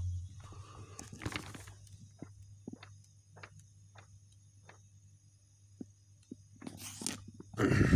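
Paper pages of a softcover comic book being turned by hand. Rustles come about a second in and twice near the end, the last the loudest, with light ticks of handling between them over a low steady hum.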